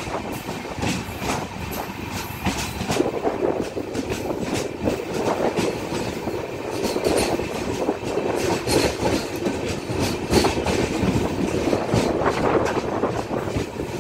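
A freight train of open-top wagons passing close alongside, with a steady rolling rumble of steel wheels on rail, broken by frequent irregular clicks and knocks.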